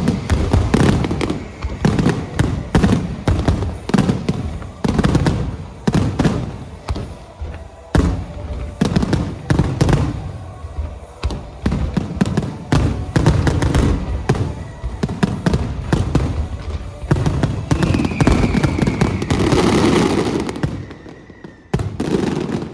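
Aerial fireworks shells bursting in quick succession, several sharp bangs a second, each with a brief echoing tail. Near the end they thicken into a dense, continuous barrage that then cuts off.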